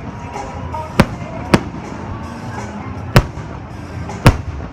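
Fireworks bursting: four sharp bangs at uneven intervals, over show music and crowd chatter.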